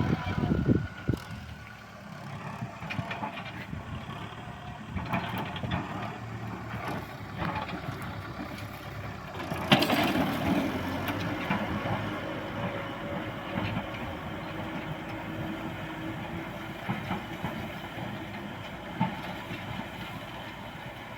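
Kubota M6040S tractor's diesel engine running while it ploughs a rice field, with scattered knocks and clanks. About ten seconds in there is a louder burst of noise, after which a steady tone carries on.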